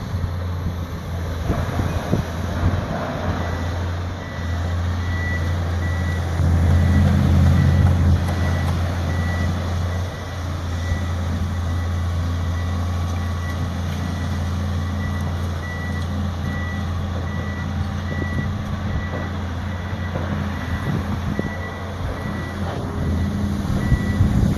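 Heavy diesel demolition machinery running, with a steady low engine drone that grows louder for a few seconds. A backup alarm beeps repeatedly from about five seconds in until near the end, over scattered clinks and knocks.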